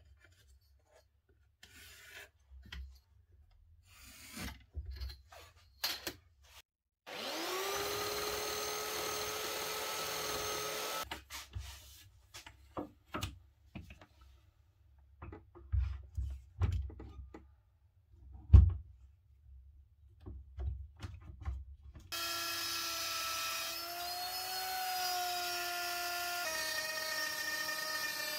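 Wooden knocks and tool-handling clicks, with one sharp knock about two-thirds in. About a quarter of the way in an electric power tool whines up to speed, runs a few seconds and cuts off. From about three-quarters in a plunge router runs and cuts into wood, its whine wavering and dropping in pitch under load.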